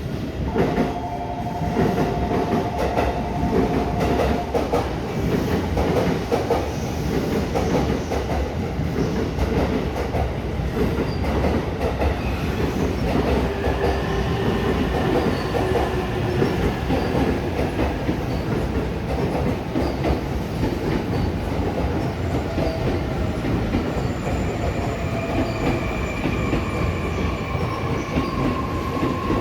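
E257 series electric train pulling out and running through the station, its wheels clicking over rail joints and points, with high squealing tones from the wheels on the curves. A steady tone is held for the first four seconds or so.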